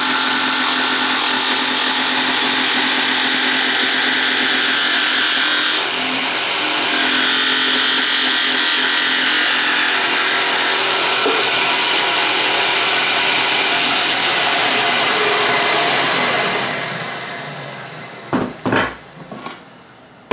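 Festool Trion jigsaw cutting through a wooden drawer front, with a Festool CT33 dust extractor drawing through its hose. The sound dies away over a second or two near the end, followed by a few short knocks.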